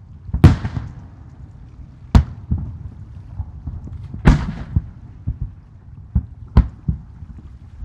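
Aerial firework shells bursting in a run of sharp booms, the loudest about half a second in and about four seconds in, with several smaller bangs between.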